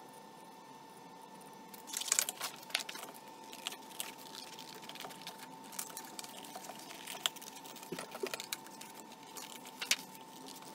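Scissors snipping through a sheet of paper around a traced outline, with irregular clicks and paper rustling and crinkling as the sheet is handled, starting about two seconds in. A steady high hum runs underneath.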